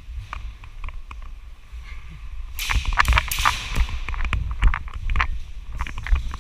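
Airsoft pistols firing: a scattered string of sharp cracks at irregular intervals, thickest around three seconds in, over a low rumble.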